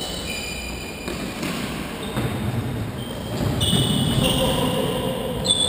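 Indoor five-a-side football in a sports hall: trainers squeak sharply on the hall floor several times, with thuds of the ball being played, echoing around the hall.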